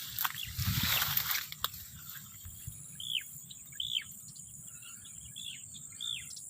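Rustling and handling noise with a sharp click, then a wild bird calling outdoors: four short notes that each drop sharply in pitch, spaced about a second apart, over a thin steady high tone.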